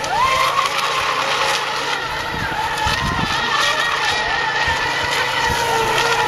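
Several electric RC racing boats of the ECO Expert class running at speed: overlapping high-pitched motor whines that drift in pitch, one rising sharply right at the start as a boat accelerates out of a turn.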